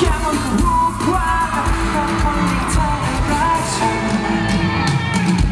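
Loud pop song with singing, played through a venue's sound system at a live stage performance and recorded from the audience.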